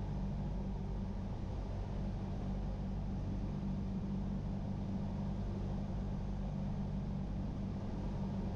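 Single-engine piston airplane's engine and propeller running steadily at reduced approach power, heard from inside the cockpit as a constant low hum.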